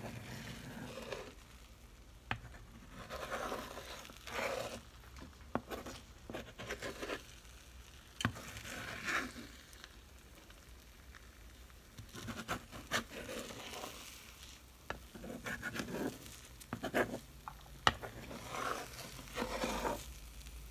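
Slotted metal spoon scraping and clicking against a skillet as scrambled eggs are pushed and turned, with the eggs sizzling lightly in the hot pan. Sharp clicks of the spoon striking the pan come at irregular moments among the scraping.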